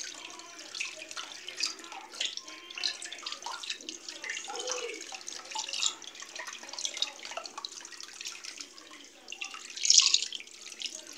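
Kitchen tap running into a basin of water while hands scrub and rinse tripe, with uneven sloshing and splashing; a louder splash near the end.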